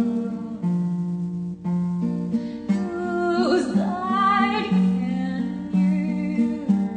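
A song played on acoustic guitar with a voice singing over it; a few seconds in, the voice slides and bends in pitch.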